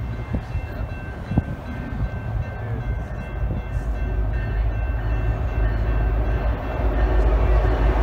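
BNSF coal train, led by two diesel locomotives, approaching: a low rumble of engines and wheels that grows louder as it draws near.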